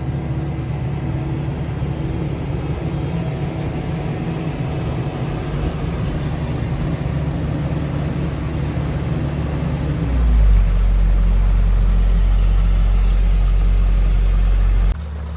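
Excavator's diesel engine running steadily, its pitch dropping about eight seconds in. About ten seconds in a louder, deeper steady hum takes over, then cuts off sharply near the end.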